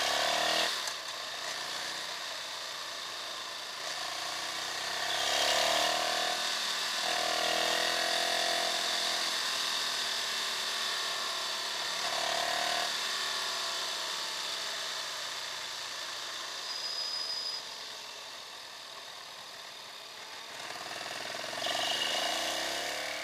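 Ducati Streetfighter's L-twin engine at track speed, heard from a camera mounted on the bike, its note rising and falling several times with throttle and gear changes. Heavy wind rushing over the microphone covers it throughout.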